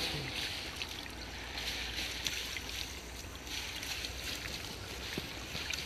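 Water sloshing and dripping as people wading waist-deep lift and handle a fishing net, with a few faint splashes and clicks over a steady low rumble.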